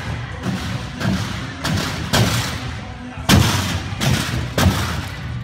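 A gymnast's hands and feet striking a sprung tumbling track during a tumbling pass of handsprings and flips: about five sharp thuds at uneven spacing, the loudest a little past the middle.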